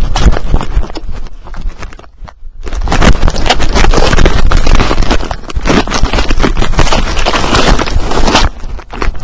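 Dry grass and brush scraping and crackling against a camera worn by an English springer spaniel as she pushes through heavy cover, with the thuds of her bounding stride. It eases briefly about two seconds in, then turns loud and dense until near the end.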